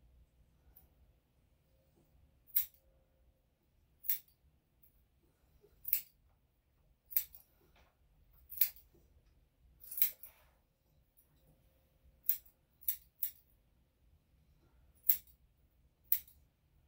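Grooming scissors snipping through a Bichon/Shih-Tzu's curly foreleg hair: about eleven single sharp snips at uneven intervals, roughly one every second or two, with three in quick succession a little past the middle.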